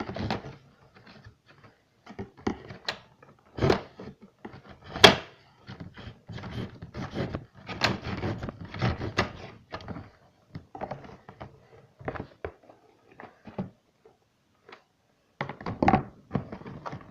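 A knife cutting and scraping at packaging, with irregular knocks and rubbing as the package is handled.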